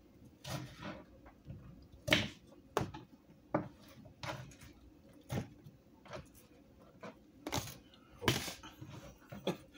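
Kitchen knife slicing through a cucumber and knocking on the cutting board: a series of single chops at uneven spacing, about a dozen in all.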